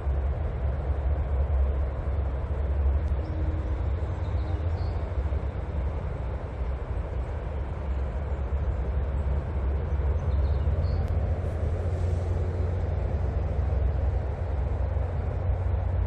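Outdoor ambience of a steady low rumble, with a few faint, brief high bird chirps scattered through it.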